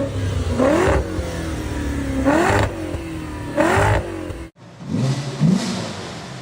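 VW Passat W8's 4.0-litre W8 engine revved through its exhaust in three quick throttle blips, each a sharp rise and fall in pitch. After a sudden cut about four and a half seconds in, it idles and gives one smaller blip.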